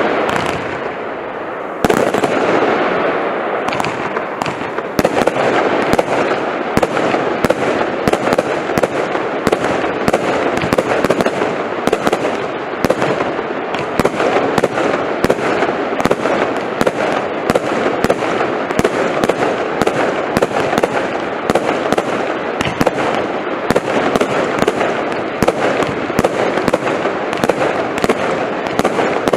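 Lightning Storm firework compound firing continuously: a rapid, dense run of sharp cracks, several a second, over a steady haze of shots. It grows denser about two seconds in.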